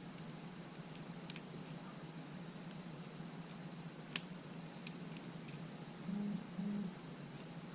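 Faint, scattered sharp clicks and taps of small tools and camera parts being handled during an LCD panel teardown, the sharpest about four seconds in, over a steady low electrical hum.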